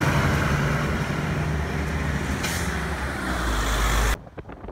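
Motor vehicle engine and road noise close by: a heavy low rumble under a rushing hiss, with a brief brighter hiss about two and a half seconds in. It cuts off suddenly about four seconds in.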